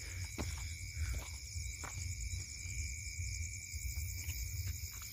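Night insects, crickets, chirping steadily in a high, fine pulsing drone, over a low rumble, with scattered light clicks and crunches of footsteps on stony ground.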